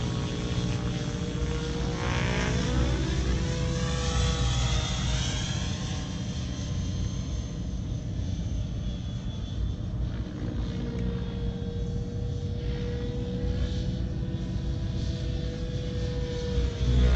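Radio-controlled F3C aerobatic model helicopter running: a steady whine from its motor and rotor over a low hum, the tone wavering and sweeping between about two and six seconds in, then steady again.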